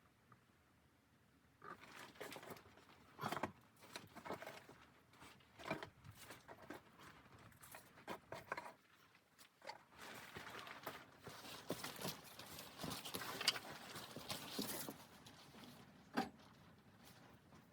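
Irregular crunches, knocks and rustling that thicken into steady rustling from about ten to fifteen seconds in.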